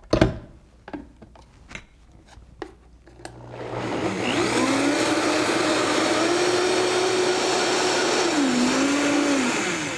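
Countertop blender making coconut milk from warm water and coconut butter: a knock as the lid goes on and a few light clicks, then about three seconds in the motor starts, rises to a steady high speed, dips once near the end and winds down as it is switched off.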